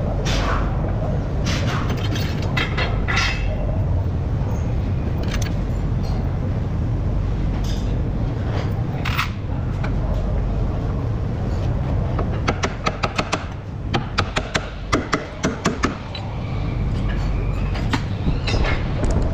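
Sharp metal clicks and knocks from work on a car's lower ball joint as its stud is fitted into the steering knuckle, over a steady low workshop rumble. About two-thirds of the way through comes a rapid run of clicks, followed by a few heavier knocks.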